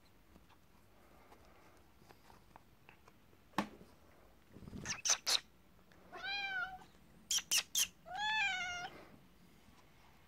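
A domestic cat on catnip meows twice, each meow rising then falling in pitch, the second longer and louder, with a few sharp clicks before and between the meows.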